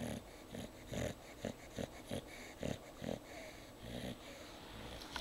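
A sleeping pet snoring in a run of short, quick breaths, roughly two a second and unevenly spaced.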